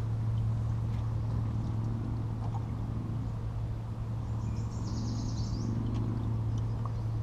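A steady low hum, with a bird's high warbling call for about a second and a half in the middle.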